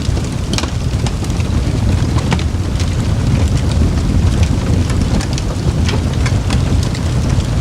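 Campfire burning, with irregular sharp crackles and pops, several a second, over a steady low roar.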